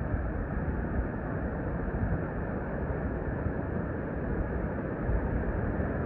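Steady, even rushing of waves and wind, with no distinct events.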